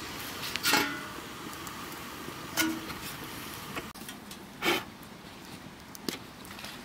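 Kitchen utensils knocking and clinking four times, some strikes leaving a brief ringing tone, over a steady hiss.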